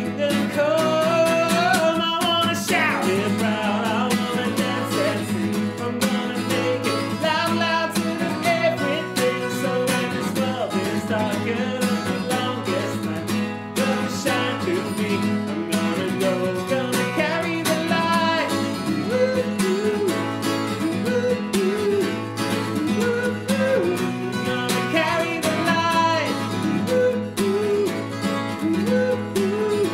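A worship song sung to a strummed acoustic guitar, with the guitar keeping a steady strumming rhythm under the sung melody.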